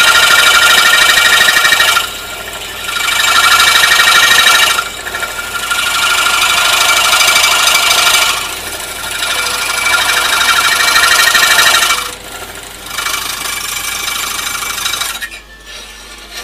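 Scroll saw blade cutting 2 mm brass sheet: a loud, steady, high-pitched rasping with ringing metallic tones. It eases off briefly about every three seconds as the piece is steered through the cut, and the cutting noise drops away near the end.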